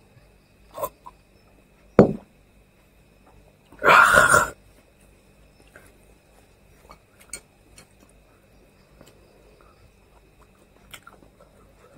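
A drinker gulps down a glass of whisky. The glass goes down on the table with a sharp knock about two seconds in, then comes a loud, rough breath out lasting about half a second. After that there are only faint clicks of eating with the fingers.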